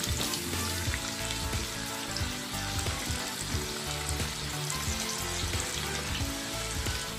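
Battered potato slices deep-frying in a wok of hot oil: a steady crackling sizzle.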